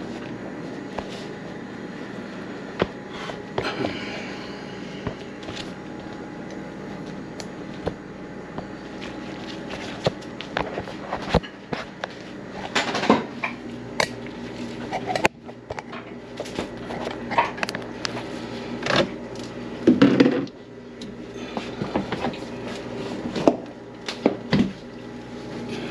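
Scattered knocks, clicks and clatter of things being handled around a kitchen sink and its cupboard, over a steady hum. The loudest knocks come about halfway through and again about three-quarters of the way through.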